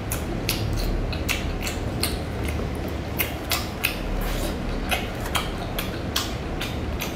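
Close-miked chewing: irregular wet mouth clicks and smacks as a person eats, over a steady low background hum.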